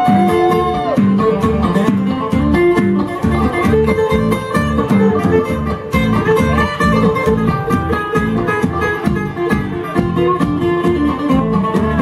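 Live bluegrass band playing an instrumental break, with a guitar taking the lead over a fast, steady banjo and bass rhythm.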